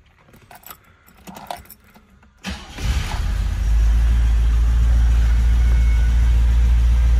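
Keys jangle and click at the ignition, then the 1972 Mercedes-Benz 300 SEL 4.5's 4.5-litre V8 cranks for about a second and fires on a cold start, settling into a steady idle.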